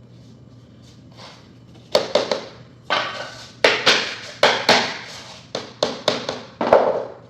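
About a dozen sharp taps, some in quick pairs, starting about two seconds in: a glued laminate floor plank being knocked down and into place.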